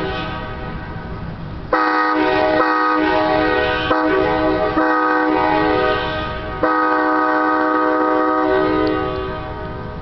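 Nathan K5LA five-chime locomotive air horn sounding a chord in long blasts. A fading tail opens, a long blast starts suddenly about two seconds in, and after a brief drop another blast follows just past six seconds, fading out near the end.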